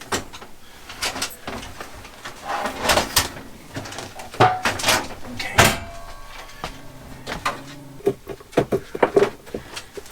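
Irregular knocks, clunks and scrapes as a microwave oven and its metal mounting brackets are handled and set in place.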